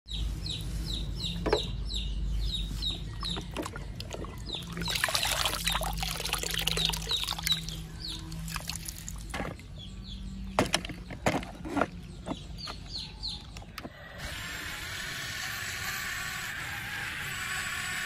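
Shallow muddy water splashing, with plastic toys knocking and scraping in it, under repeated short bird chirps. About fourteen seconds in, the sound changes abruptly to a steady outdoor hiss.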